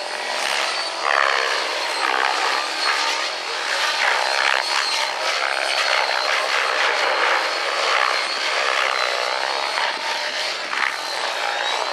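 Radio-controlled model helicopter flying aerobatics: motor and rotor blades running, the pitch rising and falling over and over as it flips and tumbles.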